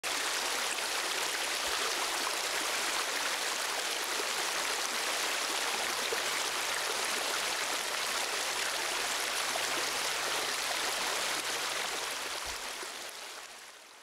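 Rushing white water of a fast stream, a steady dense rush that fades out over the last two seconds or so.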